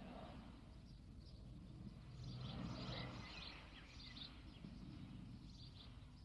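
Quiet outdoor ground ambience: birds chirping now and then over a low, steady murmur that swells briefly a couple of seconds in.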